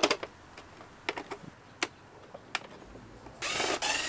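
Sharp plastic clicks and taps as the parts of a car's heater box are handled and taken apart. About three and a half seconds in, a louder continuous rasp begins.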